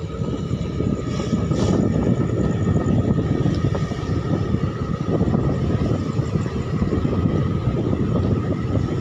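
Motorbike being ridden at a steady pace: the engine running under a dense low rumble of wind and road noise on the microphone.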